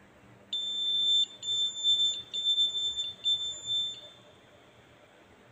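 A high, steady electronic beep tone, starting about half a second in and lasting about three and a half seconds with a few brief breaks.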